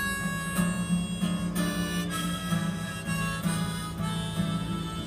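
Harmonica played in a neck rack over a strummed acoustic guitar: a blues instrumental break with held harmonica notes that change every half second or so, the guitar strummed about twice a second.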